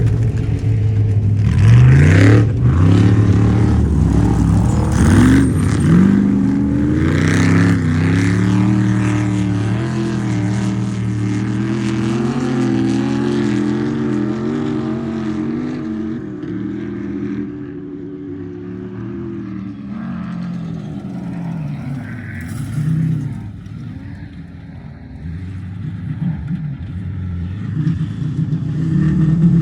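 Off-road race vehicle's engine accelerating hard, its note climbing several times in the first few seconds as it shifts up. It then runs on, falling in pitch and fading as it goes away. Near the end an engine grows louder again.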